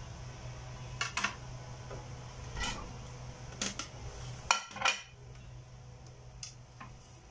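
Kitchen knife clicking and tapping on a plastic cutting board as cake crusts are cut away, then a ceramic plate clinking as it is set down on a stone counter, the two loudest knocks about four and a half to five seconds in.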